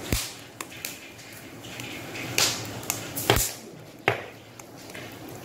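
Large banana leaves swishing and rustling as they are laid over a vessel of cut vegetables, in four short swishes with lighter leaf ticks between them.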